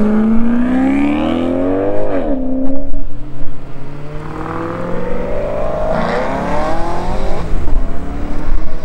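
Maserati V8 engines as two convertibles accelerate away one after the other: the first climbs in pitch for about two seconds and drops at a gear change, then a second car's engine climbs steadily from about three seconds in until near the end.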